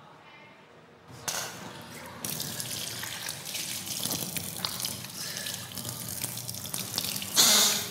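Water running from a tap into a metal washroom sink, with hands scooping and splashing it, starting about a second in. A louder splash comes near the end.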